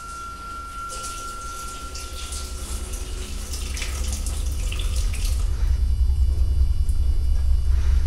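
Water running in a shower, a hiss that starts about a second in and cuts off after about five seconds, over a deep low drone that grows steadily louder.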